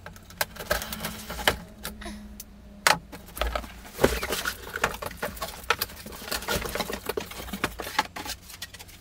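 Cardboard box being opened by hand: the packing tape slit and the flaps pulled back, giving irregular scratching and rustling of cardboard with a few knocks.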